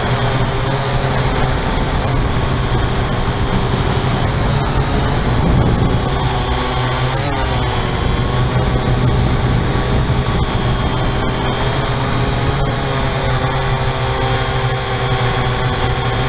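Syma X8-C quadcopter's motors and propellers whirring steadily, picked up by its onboard camera in flight. The pitch dips and rises about seven seconds in, as the motor speeds change.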